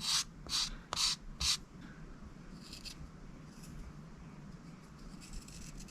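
A file rasping back and forth on a carved balsa-wood lure body: four quick strokes about half a second apart, then softer, scattered strokes as the lure is shaped.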